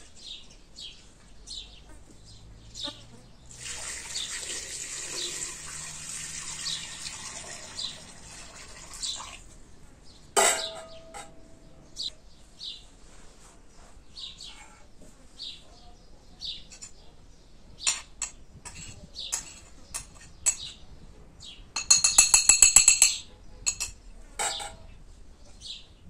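Water poured into a metal pot or bowl for several seconds, then clinks of metal cookware, one ringing briefly. A loud, fast rattle comes near the end, and small birds chirp throughout.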